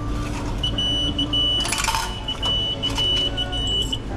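Electronic beeping at one high pitch, an uneven run of short and longer beeps, with a brief clatter about two seconds in.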